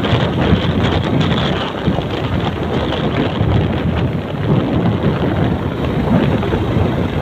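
Wind buffeting the microphone of a camera on a moving motorbike: a loud, unsteady rumbling noise with the ride's road and engine noise mixed beneath it.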